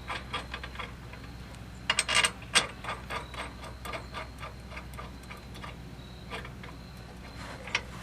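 Light metallic clicks and ticks of hand tools and bolts being handled while fitting 15 mm bolts, with a quick cluster of clicks about two seconds in.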